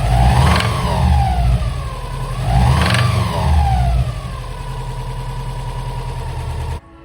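Subaru Impreza flat-four boxer engine with rod knock, blipped twice, each rev rising and falling back, then settling to a steady idle before it cuts off abruptly near the end.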